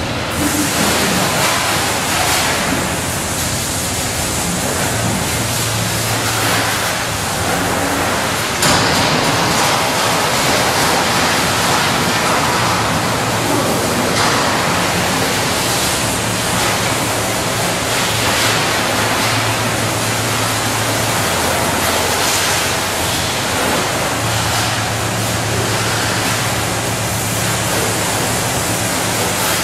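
High-pressure water spraying from a car wash wand: a loud, steady hiss, with a low hum that comes and goes every few seconds.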